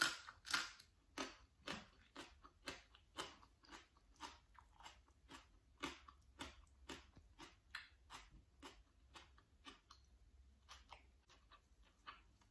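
A person chewing a bite of crisp raw vegetable. It goes as a run of sharp crunches, about two to three a second, loudest just after the bite and weakening as the mouthful is chewed down.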